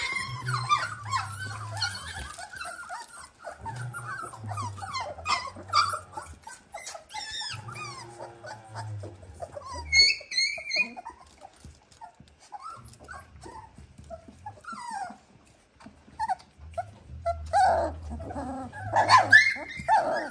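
A litter of three-week-old Dalmatian puppies squeaking and whimpering, many short high cries overlapping, louder bursts about halfway and near the end.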